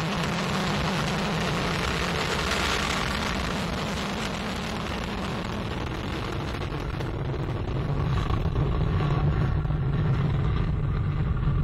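Vega rocket's P80 solid-fuel first-stage motor thundering at liftoff and climb-out, a steady noisy roar. Its high hiss fades after a few seconds while the low rumble grows louder from about eight seconds in.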